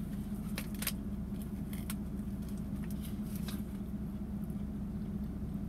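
Chewing a bite of a spinach feta wrap, with a few faint crinkles of its paper bag, over a steady low hum in a car cabin.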